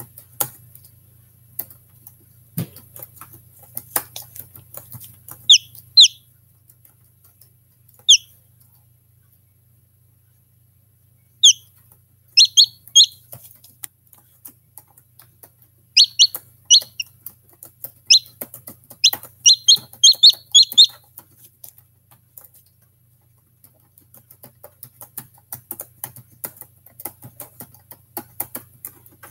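Newly hatching chicken chick peeping, a series of short high peeps in clusters, quickest near the middle, alongside scattered faint taps.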